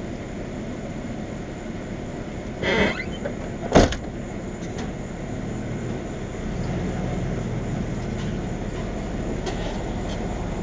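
A single sharp knock a little under four seconds in, just after a short scraping rustle, over a steady low hum; the hum grows somewhat louder about six and a half seconds in.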